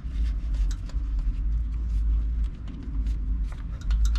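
Light metallic clicks of small-block Chevy rocker arms being worked by hand on their studs while they are checked for looseness, over a steady low rumble.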